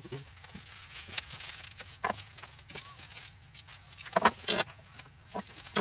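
Metal screw clamps clinking and rattling as they are handled, with scattered light knocks and two sharp ringing metal clanks a little past the middle.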